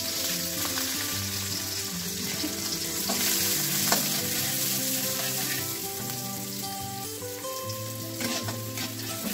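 Chopped garlic sizzling steadily in hot oil in a wok while a slotted spatula stirs it.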